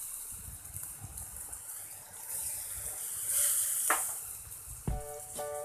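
Halved kepok banana pieces sizzling in melted margarine in a nonstick frying pan over a low flame, with a few soft knocks as the pieces are moved around in the pan. Background music starts near the end.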